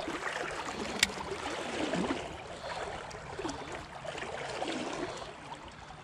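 Creek water flowing and gurgling over a rocky bed, with one sharp click about a second in.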